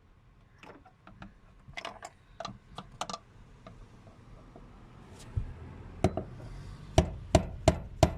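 Hand-tool work: scattered light taps and knocks, then about seven seconds in a run of evenly spaced hammer blows, about three a second.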